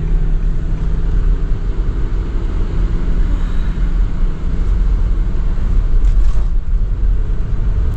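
Car driving along a road: steady engine and tyre rumble, with a low engine hum that fades about three to four seconds in.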